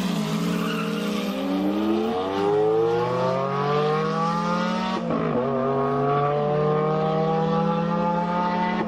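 A car engine accelerating hard: its pitch climbs steadily for about four seconds, drops sharply at a gearshift about five seconds in, then climbs again. A steady low hum runs underneath.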